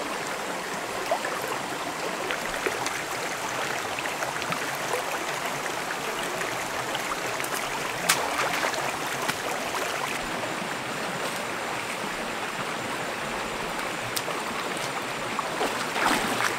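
Shallow stream flowing over rocks: a steady rushing and gurgling of water. Near the end, splashing as someone wades into the water.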